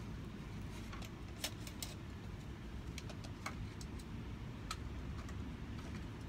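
Scattered light clicks and taps of cedar shakes being handled, over a steady low rumble.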